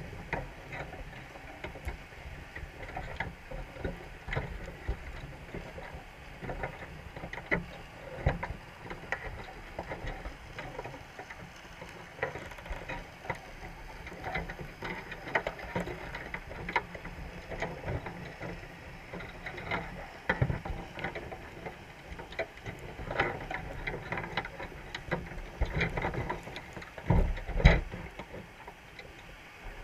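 Irregular clicking and tapping heard underwater: Dungeness crabs moving in a wire crab trap, their shells and legs knocking against the mesh and each other. A couple of heavier low knocks come about 27 seconds in.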